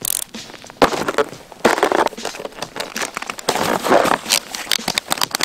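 Snowboard boot, binding and glove crunching and rustling in packed snow while strapping in, an irregular run of crackling scrapes and clicks close to the microphone.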